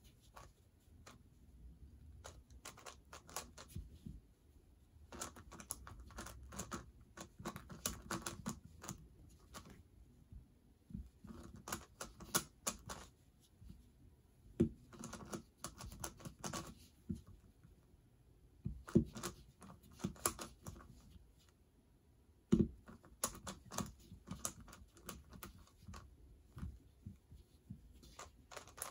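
Plastic clatter of a speedcubing twisty puzzle being turned quickly by hand: runs of rapid sharp clicks broken by short pauses.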